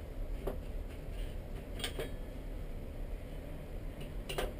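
Soldering iron tip knocking against the metal dish of a brass-wool tip cleaner, three sharp metallic clicks about half a second, two seconds and four and a half seconds in, as excess solder is cleaned off the tip. A low steady hum runs underneath.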